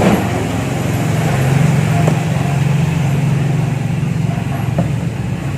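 A steady low mechanical hum from a nearby running motor or engine, with a couple of faint knocks about two seconds in and near the end.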